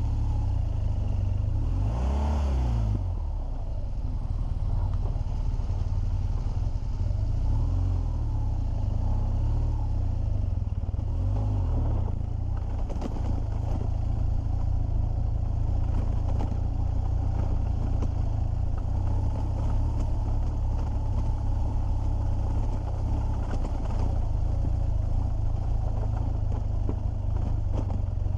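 BMW R1200GS flat-twin boxer engine pulling the motorcycle up a rocky gravel track at low speed, with loose stones clattering under the tyres. The engine note rises and falls briefly about two seconds in.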